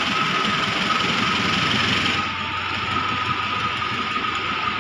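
Diesel-electric locomotive drawing a passenger train slowly into the station: a steady engine drone with a thin steady whine over it. The noisier hiss above it eases about two seconds in.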